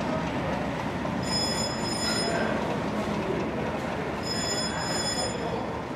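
English Electric Class 40 diesel locomotive D345 running, a steady rumble. Twice, a high-pitched whine comes in over it for about a second at a time.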